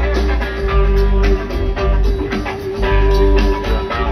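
Live rock band playing loud amplified music through a large PA, with drums and a heavy bass.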